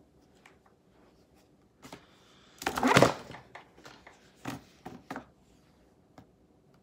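Paper and writing things being handled: a loud rustle about three seconds in, then a few sharp clicks and knocks.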